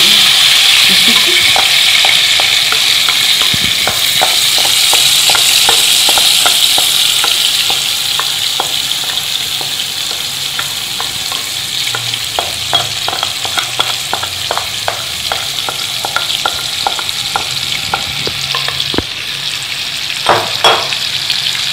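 Marinated chicken pieces sizzling in very hot oil in a wok as the yogurt marinade is scraped in from a glass bowl. The sizzle is loudest at first and eases after several seconds. Short taps and scrapes of a wooden spoon run through it, with two sharper knocks near the end.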